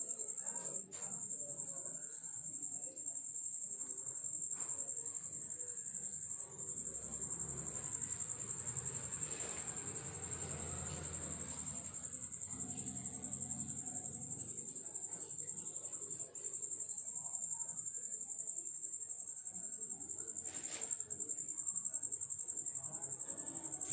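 A continuous high-pitched trill, like a cricket's, holding one steady pitch throughout. A soft rustling noise swells for several seconds around the middle.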